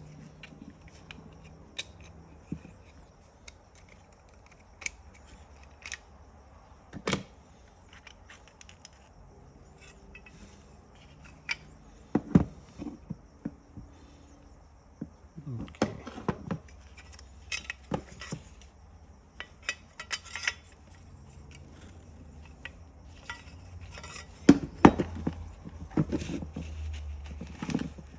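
Scattered clicks, clinks and knocks of a seatbelt retractor's metal and plastic parts being handled and worked apart, busier about halfway through and again near the end.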